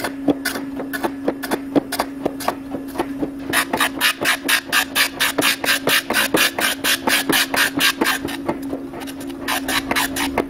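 Surface grinder grinding a Damascus steel kitchen-knife blade: a steady motor hum with a rapid, even ticking, about four to five ticks a second, that grows louder for several seconds in the middle.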